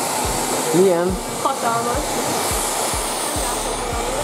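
Hand-held hair dryer blowing steadily while hair is dried straight over a round brush.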